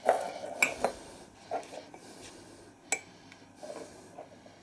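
Objects being handled and set down on a hard worktop, including a red glass light bulb with a brass bayonet base: a handful of sharp knocks and clinks, the loudest just after the start and about three seconds in.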